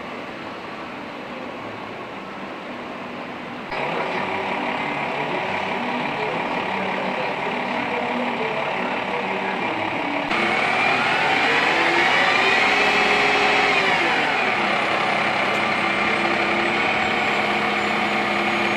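Fire truck engines running steadily. The sound jumps abruptly twice as the footage changes, and partway through one engine revs up, holds and settles back down.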